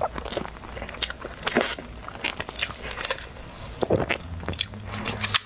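Close-miked chewing of soft food, with irregular wet mouth clicks and smacks.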